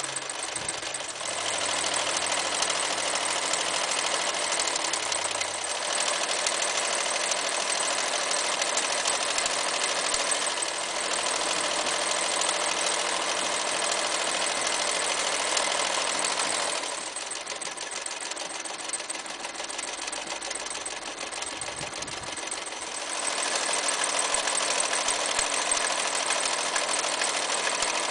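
Restored Toyota 5001 electric sewing machine running, its needle stitching rows of decorative and zigzag stitches through fabric with a fast, steady clatter. It goes quieter for several seconds past the middle, then picks up again.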